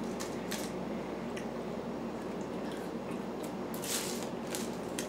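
Close-miked chewing of fast food: soft, wet mouth sounds with a few short crisp clicks, the strongest about four seconds in.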